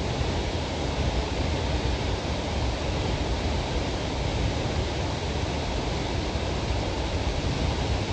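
Steady rushing noise of a nearby waterfall, even and unbroken, with a deep rumble underneath.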